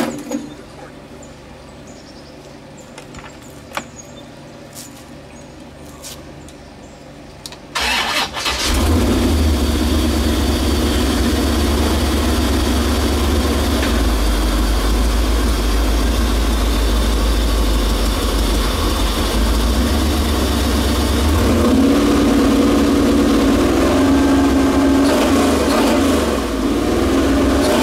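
A C4 Chevrolet Corvette's V8 engine is cranked briefly about eight seconds in, catches at once and then idles steadily, the idle picking up a little about two-thirds of the way through. Before the start there are only a few faint clicks.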